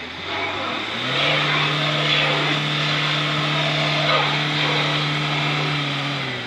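Rear-wheel-drive Mercedes-Benz ambulance van's engine revved up about a second in and held at steady high revs, then dropping away at the end, over a hiss of the rear wheels spinning in snow as the van, stuck on a snowy slope, fails to get traction.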